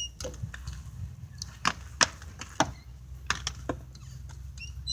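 A string of sharp, irregular knocks and clacks over a steady low rumble. There is a short high electronic beep at the start and another near the end.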